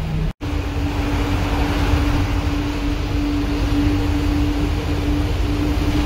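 The GM 427 big-block V8 of a 1979 GMC 6000 school bus running at a steady cruise, heard from the cab with road noise. The sound drops out for an instant near the start, then goes on as a steady, higher drone.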